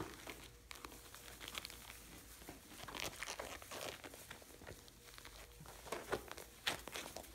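Straw bedding rustling and crunching as puppies scramble and play in it, with louder bursts of crackling about three seconds in and again near the end.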